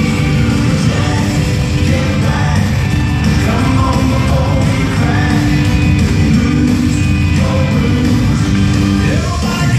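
Loud song with a singing voice over a band, played through an ice rink's sound system for a skating number.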